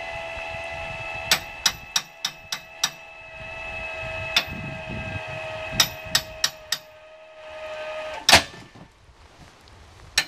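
Electric trailer tongue jack motor running with a steady hum, raising the trailer tongue and the tow vehicle's rear with it. Its pitch sags slightly under the load, with sharp metallic clicks from the hitch over it. The motor stops about eight seconds in with one loud metal clank.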